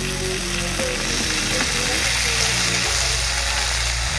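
Masala-coated paneer cubes frying in a pan, a steady sizzle, as fresh cream is poured over them.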